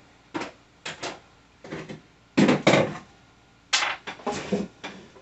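Partly assembled flat-pack bookcase and its panels being shifted and set down: a series of six or seven short wooden knocks and scrapes, the loudest about halfway through.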